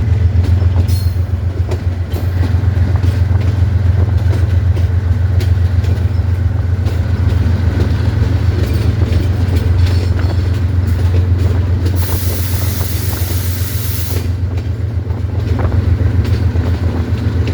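GEU-20 (GE U20C) diesel-electric locomotive running under way, its engine giving a steady, loud low drone with a fast throb. A burst of hiss breaks in for about two seconds past the middle.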